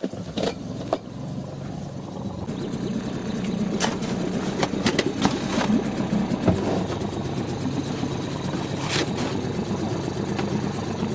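Small outboard motor on an inflatable boat running steadily, coming in abruptly and building over the first few seconds, with a few sharp knocks along the way.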